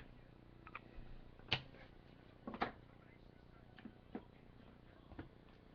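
Trading cards and their plastic holders being handled on a table: a handful of scattered light clicks and taps, the two clearest about a second and a half and two and a half seconds in.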